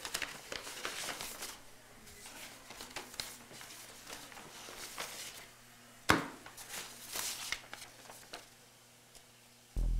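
Brown paper envelope rustling and crinkling as it is unfolded and opened by hand, with one sharp knock about six seconds in. Low music comes in just before the end.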